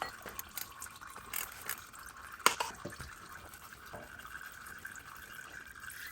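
Engine oil trickling and dripping into a drain pan while the oil filter is taken off the Porsche Boxster 986 engine. A few sharp metal clicks and knocks come from the work, the loudest about two and a half seconds in.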